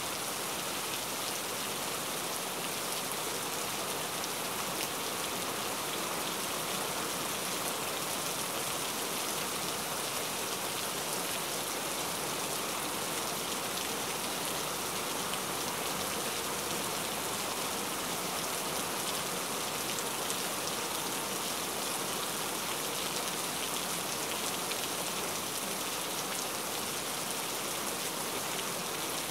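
Steady rain falling, a dense even hiss flecked with the patter of individual drops, unchanging throughout.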